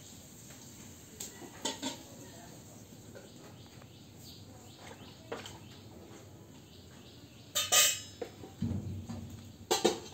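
Scattered sharp clinks and knocks, the loudest pair near the end, with a low thud about eight and a half seconds in, over a faint steady outdoor background.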